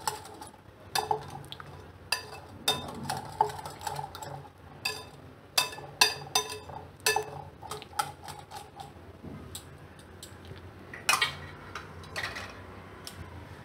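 A spoon stirring yogurt with cucumber and spices in a glass bowl, making irregular clinks and scrapes against the glass, with one louder knock about eleven seconds in.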